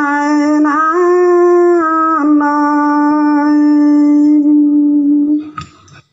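A singer's voice holding one long drawn-out note of a pả dung folk song, with a few slides in pitch in the first two seconds before settling on a steady tone. The note fades out about five and a half seconds in.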